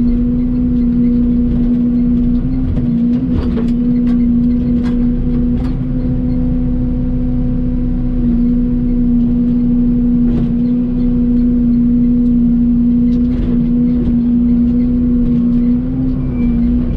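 Excavator's diesel engine running steadily under work, a strong even hum whose pitch dips slightly a few times, with a few light knocks over it.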